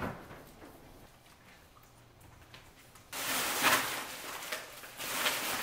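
Plastic-wrapped pantry items being handled and set down on a kitchen counter: two spells of rustling, one about three seconds in and a shorter one near the end, after a quiet start.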